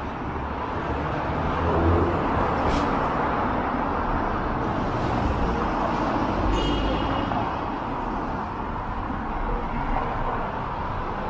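Steady downtown street traffic noise from cars and buses going by. There is a brief high squeal about six and a half seconds in.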